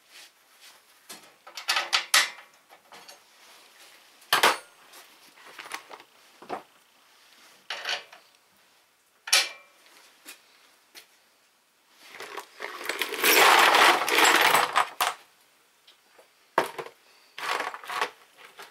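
Hand tools and steel parts clinking and clanking as work goes on at a garden tractor's rear axle, with a longer rasping metal clatter lasting about three seconds about two-thirds of the way through.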